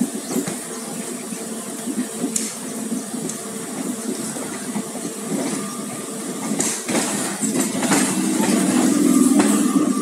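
Passenger train running on the rails, its wheels clicking over rail joints and points. In the second half an oncoming electric multiple-unit local train passes close on the adjacent track, and the noise builds to a louder rumbling hum near the end.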